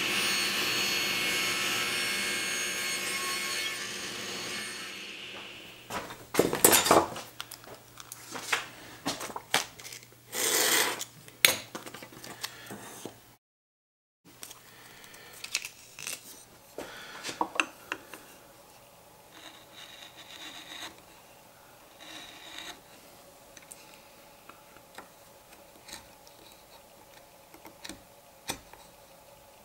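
Table saw running with its blade whine, then fading as the blade spins down over a couple of seconds after a 45° cut. Short scraping and knocking strokes from hand work on the wooden block follow, then quieter scattered rubbing strokes and small clicks.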